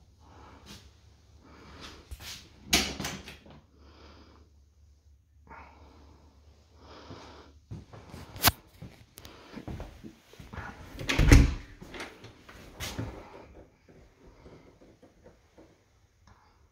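Scattered knocks and clicks from someone moving around a small room and opening a cupboard or closet door. The loudest knock comes about eleven seconds in.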